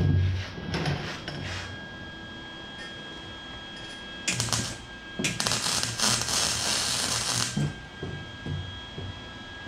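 MIG wire-feed welder arc crackling as it tack-welds a steel exhaust pipe: a short burst a little past four seconds in, then a longer burst of about two and a half seconds that cuts off sharply.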